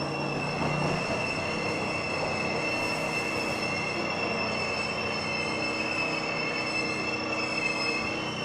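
Metrorail commuter train running, with a steady high-pitched squeal from the wheels on the rails over the rattle and rumble of the carriage.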